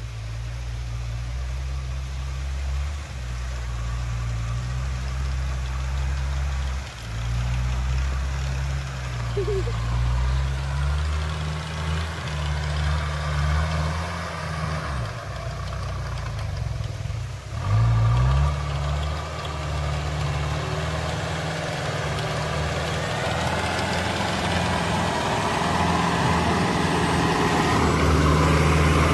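Daihatsu off-road 4x4's engine pulling uphill on a snowy track, its pitch rising and falling with the throttle. About fifteen seconds in it drops off briefly, then revs up sharply and grows louder as the vehicle comes close.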